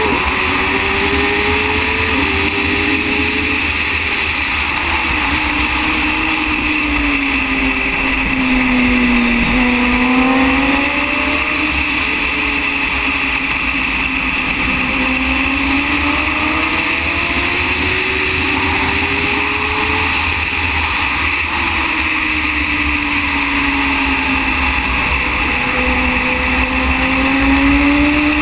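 Racing motorcycle's engine heard from onboard at track speed, its pitch sliding up and down several times as the rider works the throttle and gears through corners and straights, over a steady rush of wind noise.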